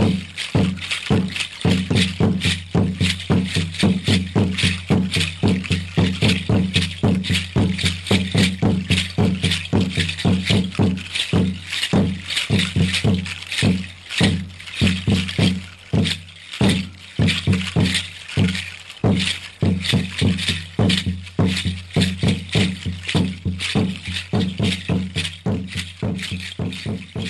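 Dance music for a Mexica (Aztec) dance: a drum beating a fast, even rhythm, with seed rattles shaking in time.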